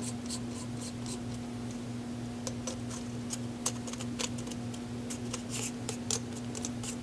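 Gloved hands screwing a Huntertown Arms Guardian 22 suppressor back together around its aluminum K baffles: short irregular scrapes and clicks of metal parts and threads turning, over a steady low hum.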